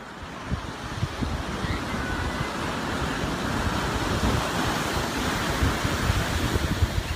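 Ocean surf with wind buffeting the microphone, a steady rush that grows louder over the first few seconds.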